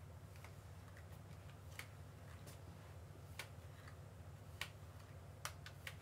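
Faint, irregularly spaced light clicks, about eight of them, the loudest near the end, over a low steady hum: handling clicks from a corded hair iron being worked through the hair.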